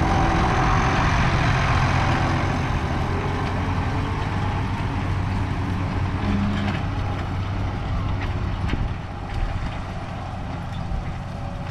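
Tractor diesel engine running steadily under load as it pulls a planter across the field. It grows somewhat quieter about three-quarters of the way through as it moves off.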